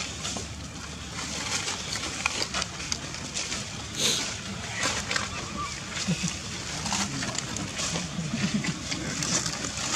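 Dry leaves and fruit rustling and crackling in irregular clicks as long-tailed macaques shuffle and handle food on leaf-covered ground.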